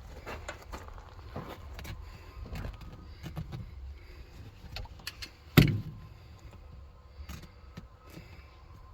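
Hands working at an old truck bench seat to get its cover off: scattered clicks, rustles and small knocks, with one loud sharp knock a little past halfway.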